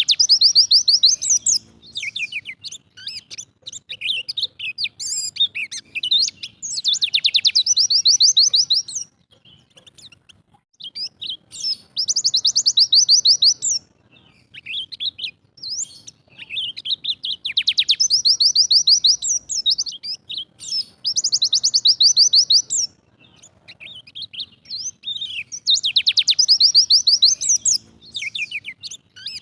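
White-eye (pleci dakun Bali) singing its rapid-fire 'tembakan' song: bursts of fast, tightly repeated high notes, each a second or two long, coming about every four to five seconds, with short chirps in between.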